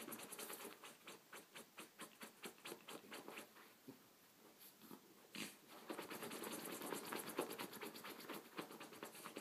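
Two small dogs digging at a padded fabric cushion bed with their front paws: quick scratching strokes on the cloth, several a second. The scratching slackens about three and a half seconds in, with one louder scrape about five seconds in, then picks up faster again.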